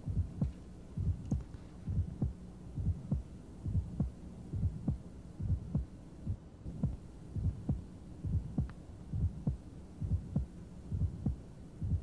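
Recorded heart sounds heard through a stethoscope at the cardiac apex, with the patient lying on the left side, beating at roughly one beat a second. Each first heart sound is closely followed by a short, high-pitched click, an early systolic ejection sound, then the second heart sound. Such an ejection sound is most commonly due to a malformed aortic or pulmonary valve.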